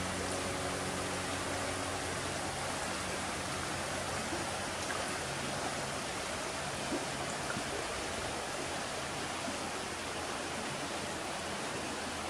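A shallow brook running over stones and riffles: a steady, even rush of flowing water.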